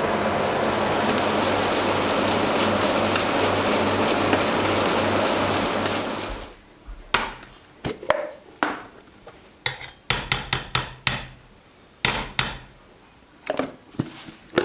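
A loud steady rushing noise with a low hum pulsing about twice a second cuts off about six seconds in. A string of about twenty sharp knocks and clacks of hard objects follows.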